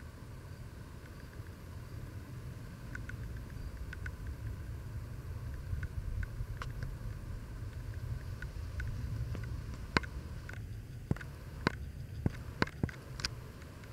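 Low, uneven wind rumble on the microphone, with a handful of sharp clicks in the last few seconds.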